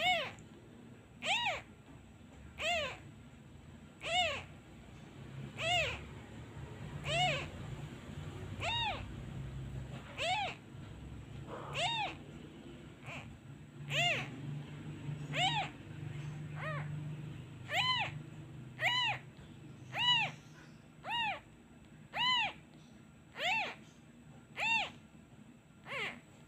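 Very young orphaned kitten crying: about twenty short mews, each rising then falling in pitch, coming about every second and a half and quickening to about one a second past the middle. These are a lone kitten's distress calls for its missing mother, made when it is left without a hand on it.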